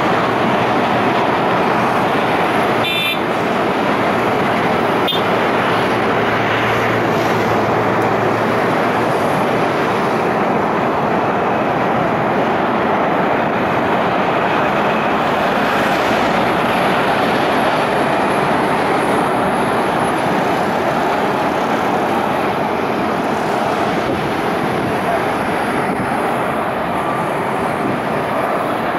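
Steady, loud rushing vehicle noise, with a short high beep about three seconds in.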